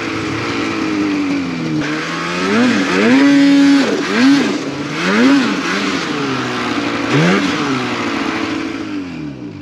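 Ski-Doo two-stroke snowmobile engine being blipped on and off the throttle, the pitch rising and falling several times, with one longer held rev about three seconds in; the revs drop away near the end.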